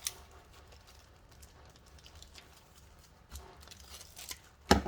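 Quiet handling of packaging, with a few light rustles and clicks, then a sharp knock near the end as a folded banner is handled and taken out.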